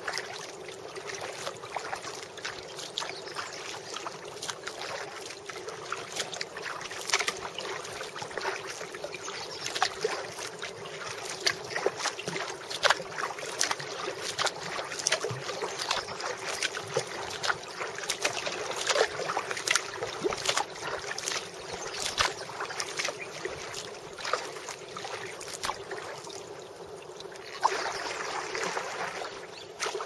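Rain pattering on the kayak and the river surface: a steady hiss full of irregular sharp taps, swelling louder for a couple of seconds near the end.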